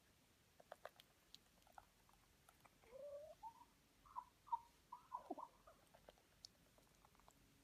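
Rooster giving a run of soft, quiet clucking and murmuring calls in the middle, short notes that rise and bend. A few faint clicks come before them.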